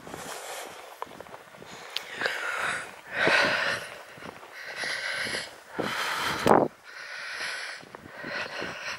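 A hiker's breathing close to the microphone while walking: a run of audible breaths, in and out, about one a second.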